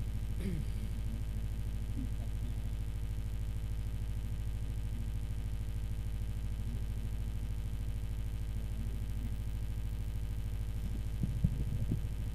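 Steady low electrical hum from a sound system, with faint low murmuring voices and a few sharp knocks near the end, like a microphone being handled.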